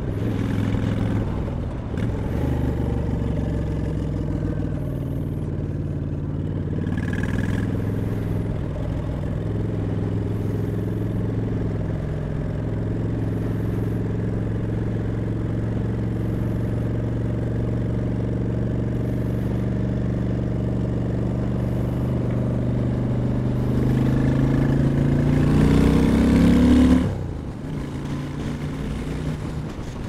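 2008 Honda Shadow 750 Aero's V-twin engine running under way as the motorcycle is ridden. The revs build and get louder for a few seconds near the end, then fall off suddenly.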